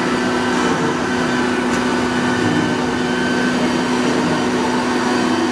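CNC router's air-cooled spindle cutting a wood-based board, a steady whine over the even rush of the dust extraction.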